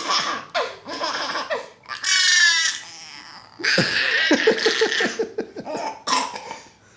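A baby's loud high-pitched squeal about two seconds in, among short bursts of laughter, then a long pulsing laugh in the middle.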